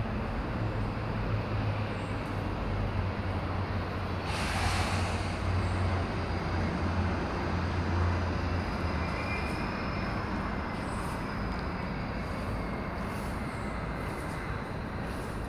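Steady low rumble of distant motor traffic, with a deep engine hum that fades out about halfway through. A short rushing hiss comes about four seconds in.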